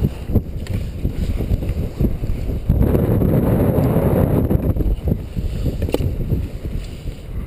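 Wind buffeting the microphone in gusts, strongest from about three to five seconds in, with a few short knocks.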